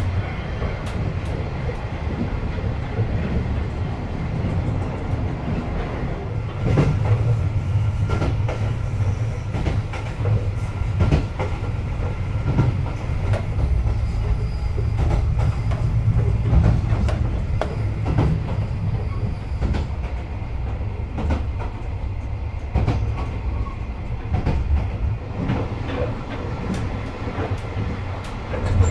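Inside a 24-series sleeping car of a moving train: a steady low rumble of the running coach, with the wheels clicking over rail joints now and then.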